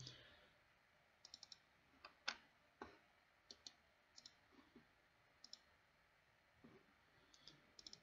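Faint computer mouse button clicks, some single and some in quick runs of two or three, over near silence.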